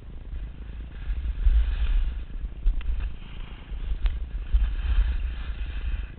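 Wind buffeting a moving action camera's microphone with a gusting low rumble, while snowboard edges scrape and hiss over packed snow in swelling waves. A few sharp clicks come in the middle.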